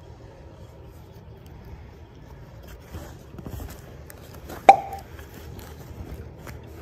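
Canvas tote bag being handled and pulled open, with faint rustling and one sharp pop about two-thirds of the way through as its snap closure comes apart.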